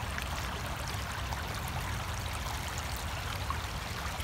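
Shallow creek water trickling steadily over a rocky bed.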